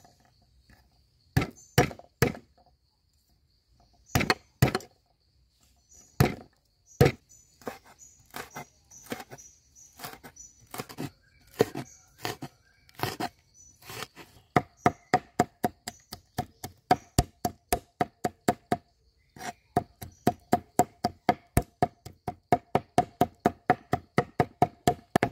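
Broad-bladed knife chopping red chillies and garlic cloves on a wooden cutting board. A few separate chops come first, then the chopping grows steady and fast, about three to four strokes a second in the second half.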